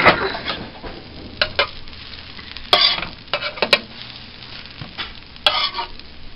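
Pancake batter sizzling on a hot griddle, with a spatula scraping and clacking against the griddle surface a few times as pancakes are lifted and flipped.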